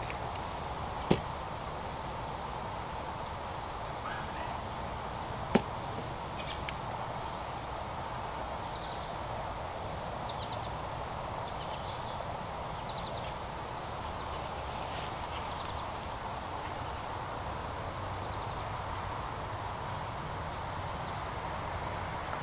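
Evening insects: a cricket chirping about twice a second, stopping about two-thirds of the way through, over a steady high insect drone. Two sharp taps come through, one about a second in and a louder one near five and a half seconds.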